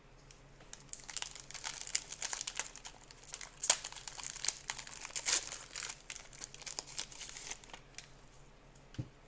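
A pack of football trading cards being torn open, its wrapper crinkling and crackling for several seconds, then a single click near the end.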